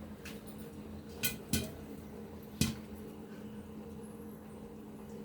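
Popcorn kernels popping inside a covered cooker on the stove: about four sharp, irregular pops against the stove's faint steady hum.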